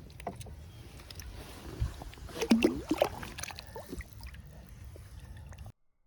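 Outdoor sound on a small fishing boat: a steady low rumble of wind and water, with scattered knocks and clicks, loudest about two to three seconds in. It cuts off suddenly near the end.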